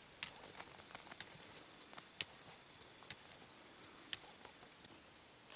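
Boots crunching and ski-pole tips tapping in snow on a climb on foot: faint, irregular clicks and crunches, a couple a second, a few sharper ones standing out.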